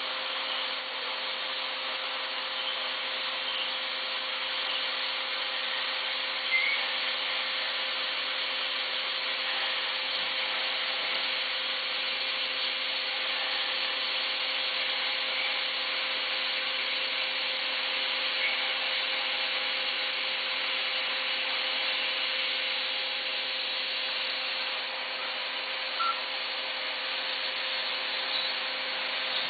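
Mazak VTC250-50 CNC vertical mill running, a steady whirring hiss with a constant low hum under it and a couple of faint clicks.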